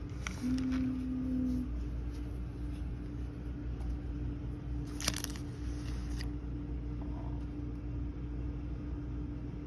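Plastic carrier bag crinkling and plastic-sealed drink cups being handled, with a sharp click about five seconds in, over a steady low hum.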